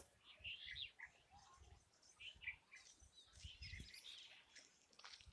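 Birds chirping faintly in short, scattered calls, with faint low bumps underneath.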